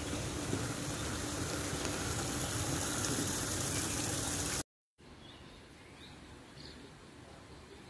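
A steady rushing hiss with a low steady hum, cut off abruptly about four and a half seconds in. Then a much quieter outdoor background with faint bird chirps.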